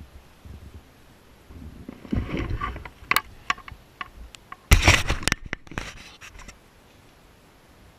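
Rustling, scraping and clicks as someone moves about inside a van cabin handling the camera, with a loud scraping knock about five seconds in.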